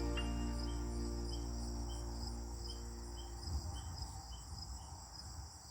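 Crickets chirping in a steady, even rhythm while the last notes of background music die away; a low rumble comes in past the midpoint.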